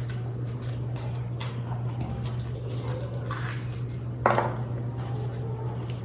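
Close-miked eating of a fried kachori: the pastry breaks in the fingers, with small clicks and wet chewing. A loud bite into the kachori comes about four seconds in.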